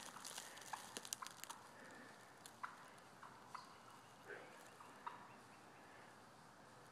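Wild turkeys giving short, sharp alarm calls, faint, about one a second, set off by a person running after them.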